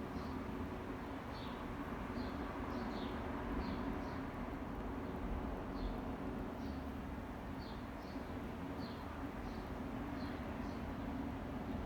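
Small bird chirping: short high chirps about once a second at uneven spacing, over a steady low background rumble.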